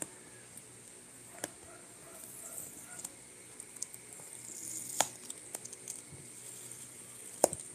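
Cardboard product box being handled and opened by hand: paper rubbing as the inner box slides against the outer sleeve, with a few sharp taps, the loudest about five seconds in and another near the end.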